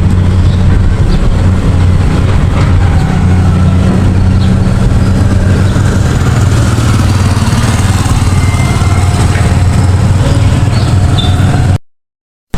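An engine running steadily at a constant speed, a loud, even low hum, until the sound cuts out abruptly near the end.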